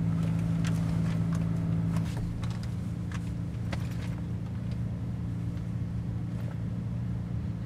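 Steady low hum of an idling car heard inside the cabin, with scattered rustles and small clicks as someone rummages through a handbag, most of them in the first few seconds.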